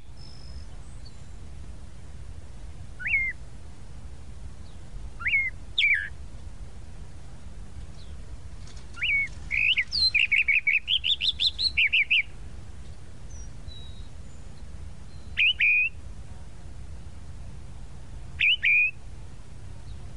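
Tropical mockingbird singing: short sweeping notes spaced a few seconds apart, with a quick run of repeated notes, about four a second, climbing in pitch around the middle.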